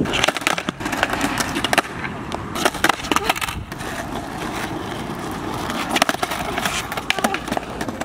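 Skateboard wheels rolling over rough asphalt with a steady rumble, broken by a series of sharp clacks of the board striking the ground.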